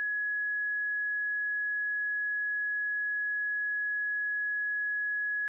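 Countdown timer's end alarm: a single high electronic tone held steady without a break.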